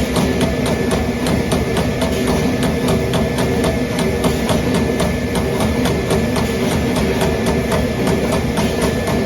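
Trumpf Trumatic 2010R CNC turret punch press punching sheet metal: sharp, evenly spaced strokes several times a second over the machine's steady running hum.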